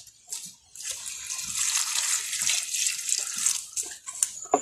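Water poured from a plastic bucket into a bowl of cut yam pieces coated in wood ash, splashing steadily for about three seconds before the pour stops.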